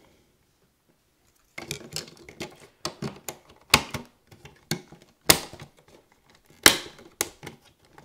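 Plastic wall-plate parts clicking and snapping as hands fit a mounting frame over an outlet and a data jack, with handling noise between. After a second or so of silence come irregular sharp clicks, the loudest about four, five and a half, and seven seconds in.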